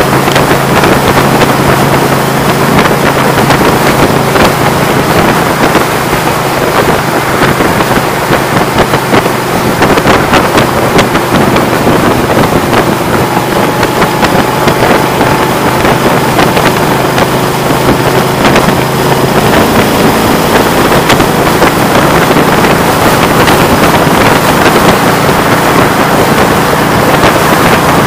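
A vehicle travelling at freeway speed: a loud, steady rush of wind and road noise with wind buffeting the microphone, and a low steady hum that stops about two-thirds of the way through.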